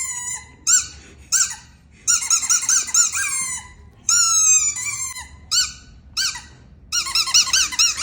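Bursts of high-pitched squeaks, played to get a reaction from a Siberian husky. Some are single squeaks that fall in pitch; others are quick wavering runs of squeaks, about two to three seconds in and again near the end.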